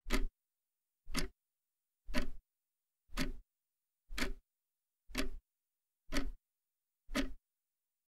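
Clock-ticking sound effect: eight ticks, one a second, with dead silence between.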